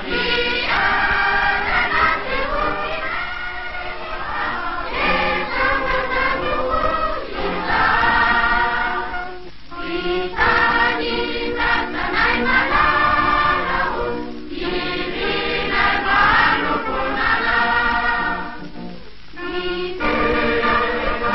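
A choir singing, in long phrases with a few short pauses between them.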